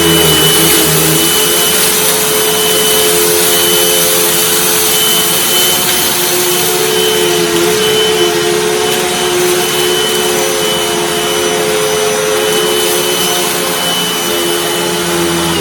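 Hoover WindTunnel T Series bagged upright vacuum cleaner running at full power with a steady high whine, pushed forward and back over rice and dirt in a pickup test. It is switched off right at the end, its pitch starting to fall.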